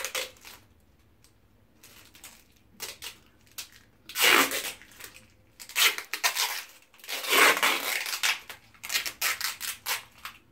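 Clear sticky tape being pulled off its roll in a series of rasping, ripping pulls as it is wound round the fingers. The loudest pulls come about four seconds in and again around seven to eight seconds.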